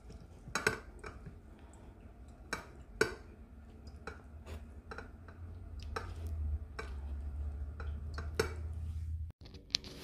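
Lemon half twisted and pressed on a ceramic hand reamer juicer: irregular knocks and clinks of rind and fruit against the ceramic, over a low steady hum.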